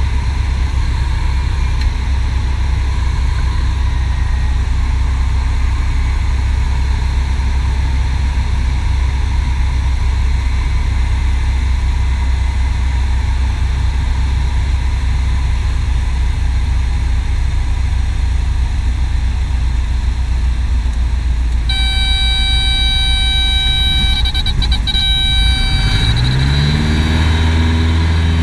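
Piper PA-18 Super Cub's piston engine and propeller drone steadily in the cockpit. Near the end a steady high warning tone sounds for about three seconds, then the engine note rises sharply and holds higher as power comes on.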